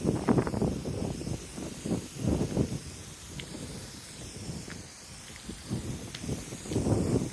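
Wind buffeting the microphone in irregular low gusts, heaviest at the start, about two and a half seconds in and near the end, over a faint steady hiss.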